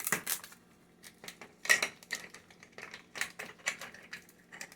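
Hands opening a plastic Zuru 5 Surprise Mini Brands capsule: an irregular run of small plastic clicks and crinkling wrapper as the compartment is pried open and unwrapped.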